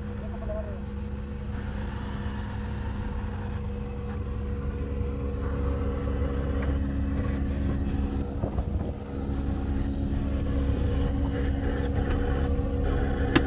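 Steady engine hum and low road rumble heard from inside a car cabin as the car follows a small motorcycle on a dirt road, slowly growing louder. A single sharp click comes near the end.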